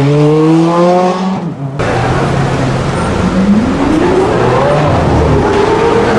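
Supercar engines accelerating hard: a rev climbing in pitch that cuts off abruptly about two seconds in, then a Lamborghini Aventador's V12 revving up sharply from about three seconds in and holding high.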